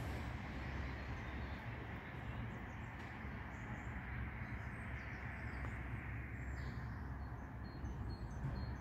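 Steady low hum and rumble from an Oslo metro train standing at the platform, with small birds chirping faintly over it from a few seconds in.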